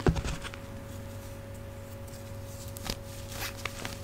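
Hands patting down into a tray of powdery crushed gym chalk, with a soft thump just after the start, then a few faint crunches as fingers squeeze the powder near the end. A steady low hum from an old refrigerator runs underneath.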